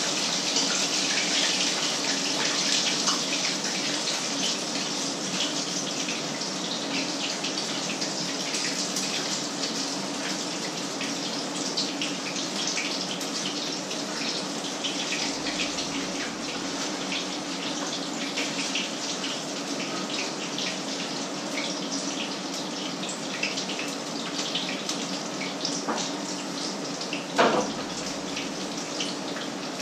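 Patties frying in a pan of hot oil: a steady sizzle with many small crackles and spits, over a low steady hum. There is a short knock near the end.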